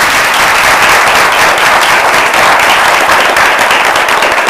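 An audience applauding steadily to welcome a speaker: many hands clapping together in a dense, even wash of sound.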